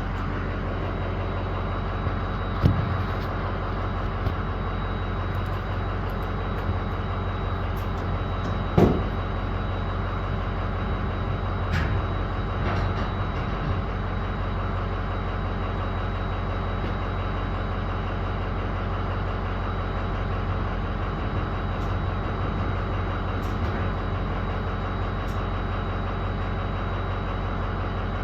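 Diesel engine idling steadily, with a couple of brief knocks about 3 and 9 seconds in.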